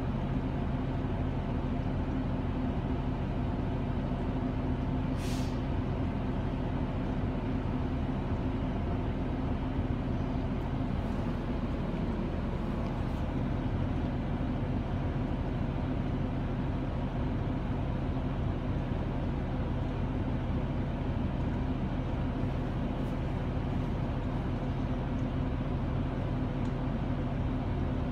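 City bus engine and drivetrain heard from inside the passenger cabin as a steady low hum, with a brief hiss about five seconds in.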